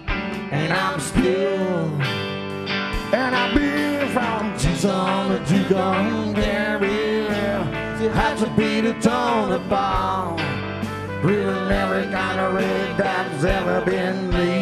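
Southern rock band playing live, an instrumental passage: electric guitar lead with bending notes over bass and a steady drum beat.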